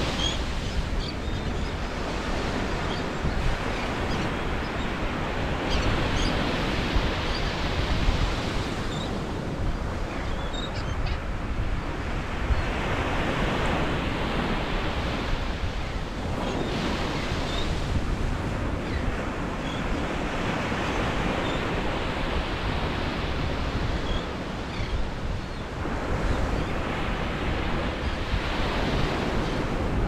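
Ocean surf breaking and washing up a sandy beach, the rush swelling and ebbing every few seconds.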